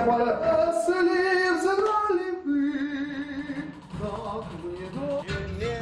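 A voice singing long, wavering held notes, with little or no accompaniment; a lower musical accompaniment comes in near the end.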